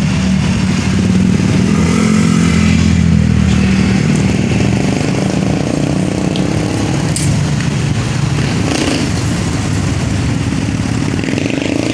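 A vehicle engine running close by, its pitch wavering over the first few seconds, then settling into a steady rumble of street traffic.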